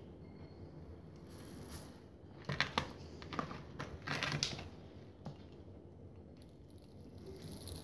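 Light handling sounds: a cluster of small taps and rustles in the middle, from hands sprinkling glitter onto a glue-coated glass bottle over paper and turning it, then a single tick.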